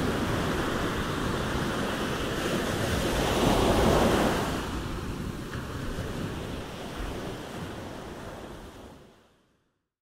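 Surf breaking and washing on a sandy beach, a dense hiss reaching from deep rumble to high fizz. One wave swells to the loudest point about four seconds in, then the wash dies back and the sound fades out to silence near the end.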